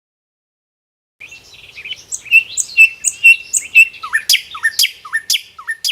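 Bird song that starts about a second in: a run of short, evenly repeated chirps, then a series of quick downward-sweeping notes.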